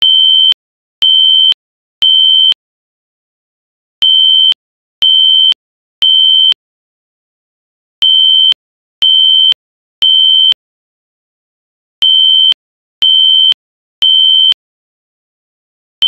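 Synthesized imitation of a System Sensor SpectrAlert Classic fire alarm horn: a high, steady amplitude-modulated tone sounding in the temporal code-3 pattern. Three half-second beeps a second apart, then a pause, repeating four times, with a faint click where each beep starts and stops.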